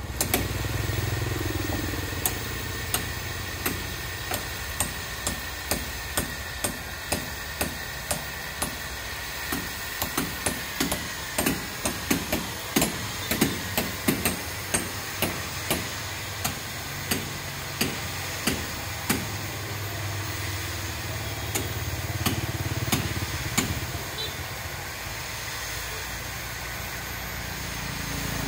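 Construction hammering: sharp blows repeated roughly once a second, quickening for a few seconds in the middle, over a steady low engine hum.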